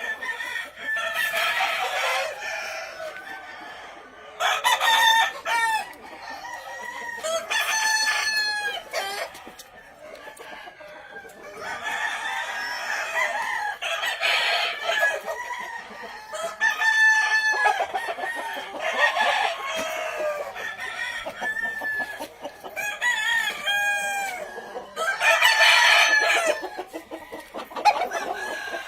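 Several game fowl roosters crowing one after another, the long calls repeating every few seconds and sometimes overlapping, with clucking between them.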